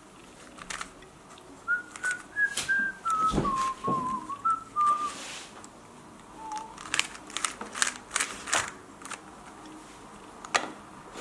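A person whistling a short, wandering tune of a few notes that starts about two seconds in and stops around halfway through, with a quick extra note after. Sharp plastic clicks of a Rubik's cube's layers being turned come through it and go on after the whistling stops.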